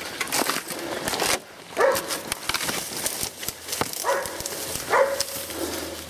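A hunting dog barks three times at a tracked wild boar, while twigs and dry reeds crackle and snap under fast footsteps through brush.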